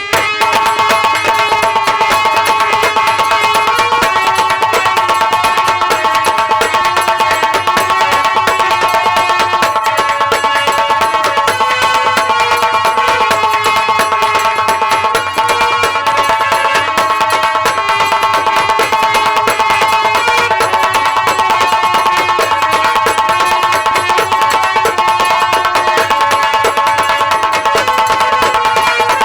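Instrumental folk music of a nautanki troupe: fast, dense hand-drum strokes under held melody notes, with no singing.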